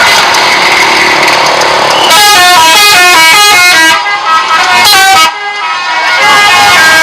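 Bus telolet horn, a multi-tone musical air horn, playing a quick tune of short stepped notes going up and down. Before the tune starts, about two seconds in, there is steady noise with a few held tones. The tune breaks off briefly twice.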